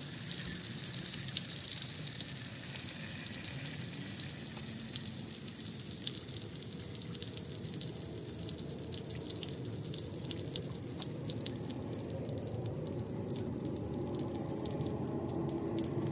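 Water pouring steadily out of an RV water heater's open anode-rod port as the tank is drained so it cannot freeze, growing more spattery and drip-like in the last few seconds.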